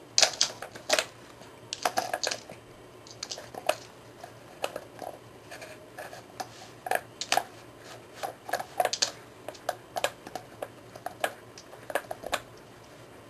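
Irregular sharp clicks and clacks of hard plastic: a poodle puppy nosing and pawing at a plastic treat puzzle toy, knocking its lids and shifting it about. The loudest clacks come right at the start.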